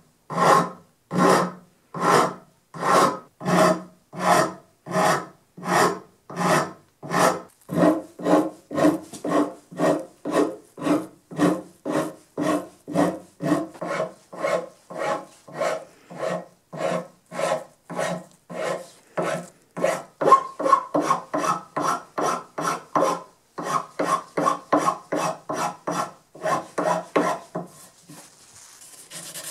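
A hand file rasping back and forth across the end of a bitternut hickory handle held in a vise, in a steady rhythm of strokes. The strokes start at somewhat under two a second and quicken to about two a second after roughly seven seconds. They pause briefly about two-thirds of the way through and stop shortly before the end.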